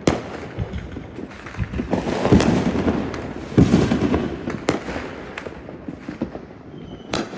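Fireworks going off: a string of sharp bangs, one right at the start, several in the middle and another near the end, with crackling between them.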